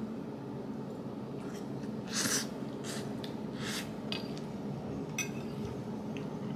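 A person chewing a mouthful of pad thai, with a few short breathy puffs through the nose and light clicks of a metal fork and spoon.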